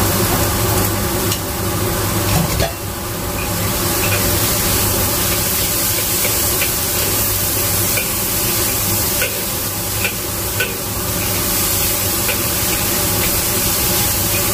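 Egg noodles, chicken and vegetables sizzling in a hot wok as they are stir-fried. A metal spatula scrapes and taps against the wok now and then, over a steady low hum.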